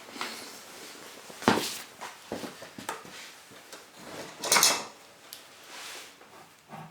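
Hard objects being handled and set down on a work surface: a sharp knock about a second and a half in, a louder rattling clatter about four and a half seconds in, and a few smaller clicks.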